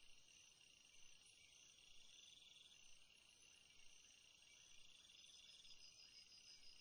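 Near silence, with a faint high-pitched chirring that swells into a trill about every three seconds.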